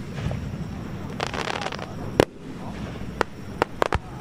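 Aerial firework shells bursting overhead: a crackling hiss about a second in, one loud bang just after two seconds, then several sharp reports in quick succession near the end.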